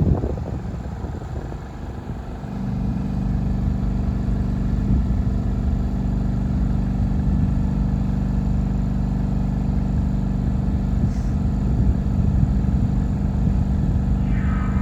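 Kohler diesel engine of a lighting tower's 5 kVA generator set running steadily. It gets louder about two and a half seconds in and then holds an even note.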